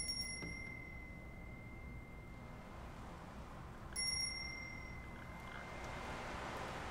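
A small bell struck twice, about four seconds apart, each strike leaving a clear high tone that rings on for several seconds while its upper overtones die away quickly.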